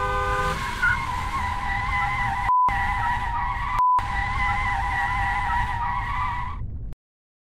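A car horn sounds and stops about half a second in. Then tyres squeal for about six seconds as a vehicle skids, broken by two short beeps about two and a half and four seconds in. The sound cuts off abruptly near the end.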